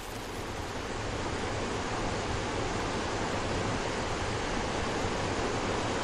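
Small waterfall spilling over a rock ledge into a pool: a steady rush of falling water.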